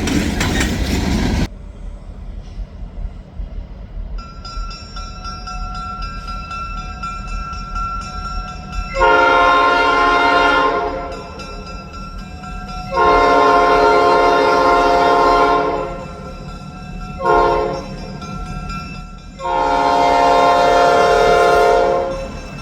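Diesel locomotive air horn on an SD9 sounding the grade-crossing signal: two long blasts, a short one and a final long one, each a loud multi-note chord, over a steady low locomotive rumble. A brief loud rush of noise cuts off abruptly about a second and a half in.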